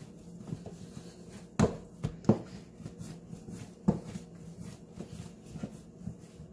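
Bread dough being kneaded by hand on a floured countertop: a handful of soft, irregular thumps and knocks as the dough is pushed and turned, the loudest about two seconds in, over a faint steady hum.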